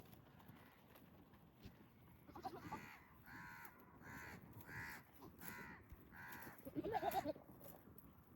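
A crow cawing a series of about seven evenly spaced caws, followed by a louder, lower call near the end.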